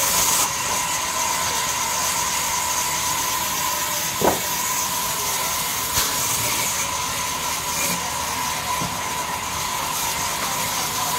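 Sawmill band saw running steadily: a constant hiss with a steady whine from the moving blade, broken by a short sharp knock about four seconds in and a click about two seconds later.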